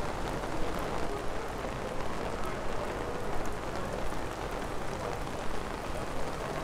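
Steady rain falling on a wet, busy city street, with scattered sharper drop ticks.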